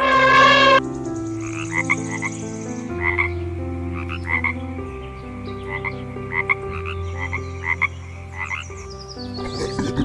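An elephant trumpets loudly for under a second. Then a frog croaks in short calls, about ten of them, scattered over the rest.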